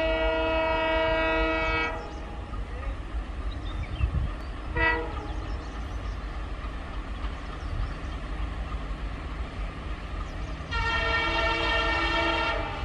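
Diesel locomotive air horn sounding a long blast, a short toot about five seconds in, and another long blast near the end, over the steady low rumble of a moving train.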